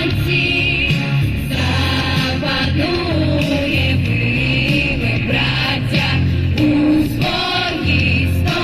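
A vocal ensemble singing an anthem-style song over instrumental accompaniment, several voices together above a steady bass line.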